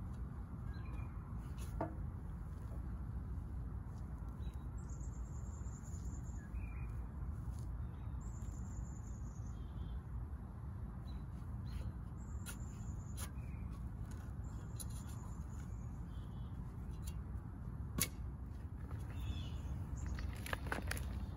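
Hand weeding with a garden trowel: scattered clicks and scrapes of the trowel in soil, a sharper knock about 18 seconds in, and rustling near the end as a grass clump is pulled and shaken out. A bird calls several times with thin high notes over a steady low background rumble.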